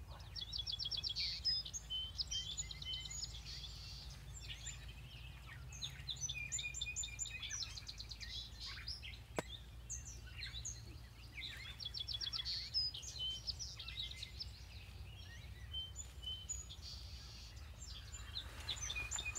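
Songbirds singing, one song with a fast trill repeating every five or six seconds, over a low steady background rumble. A single sharp click about nine seconds in.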